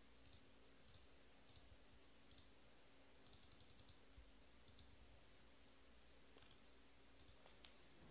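Near silence: low room hum with faint, scattered small clicks at an irregular pace, a few bunched together about three and a half seconds in.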